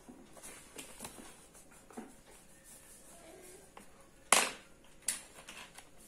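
Plastic markers and crayons clacking together as a hand picks through a pile of them on the table: one sharp clack about four seconds in, the loudest sound, and a weaker one a moment later. Before that come a few faint ticks of crayon on paper.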